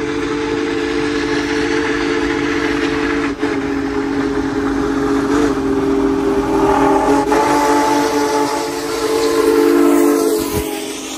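Union Pacific Big Boy #4014 steam locomotive blowing a long, loud chime whistle of several notes at once while approaching, growing louder as it nears. About ten seconds in it passes close with a hiss of steam from the cylinder cocks, and the sound begins to fall away.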